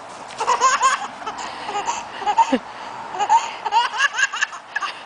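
Baby laughing in several runs of short, high-pitched giggles.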